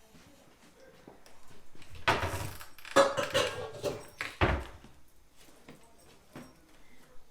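Kitchenware clattering: a couple of seconds of clinks and knocks, ending with a dull thud.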